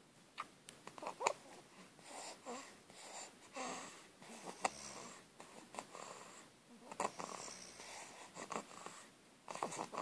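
Snoring and snuffly, wheezy breathing in sleep: irregular noisy breaths about once a second, with a few sharp clicks.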